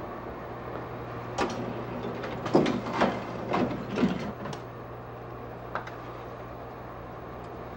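A run of sharp knocks and clatters over about three seconds, then one more click, from a silkscreen printing press being worked while a paper sheet is set against its registration tabs. A steady low hum runs underneath.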